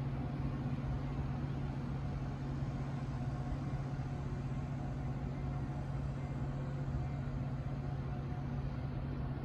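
An engine idling: a steady low hum that holds one unchanging pitch.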